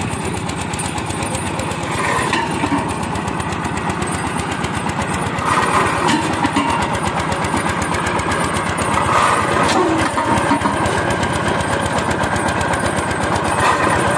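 Single-cylinder diesel engine of a pile-boring rig running steadily with a fast, even chugging as it drives the rig's belt and winch drum.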